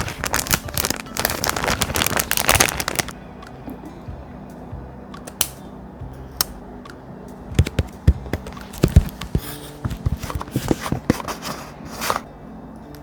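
Paper being handled: a dense crinkling and rustling of thick paper for about the first three seconds, then scattered taps and short rustles of paper being pressed and smoothed, over soft background music.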